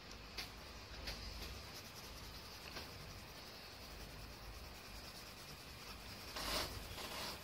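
Coloured pencil scratching across drawing paper in short shading strokes, faint, with a few sharper scrapes and a louder run of scratching near the end.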